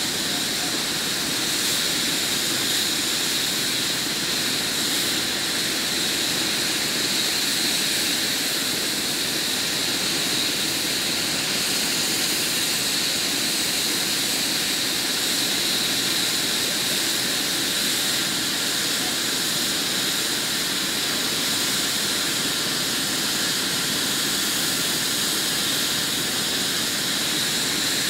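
Medical helicopter's turbine engines running steadily on the ground: a constant high whine over a steady rushing noise.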